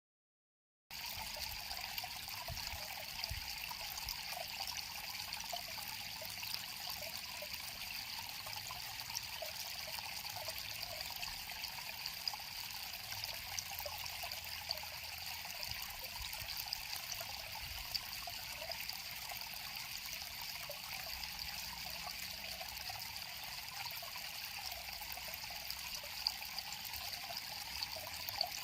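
River water flowing steadily with a bright trickling splash, starting about a second in after a moment of silence.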